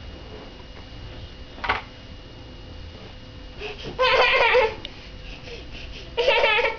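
A young child's two short, high-pitched vocal outbursts, wavering in pitch, between squealing and crying, about four seconds in and again near the end. A single light knock comes a little earlier.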